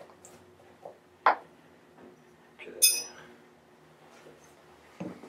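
Loose steel engine parts being handled and set down on a workbench: a few light clicks, a sharp knock a little over a second in, and a ringing metal-on-metal clink just before three seconds in.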